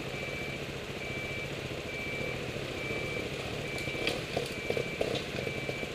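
A back-up alarm beeping steadily, one single-pitched beep about every second, over the low steady running of an engine. A few sharp knocks and clatters come around four to five seconds in.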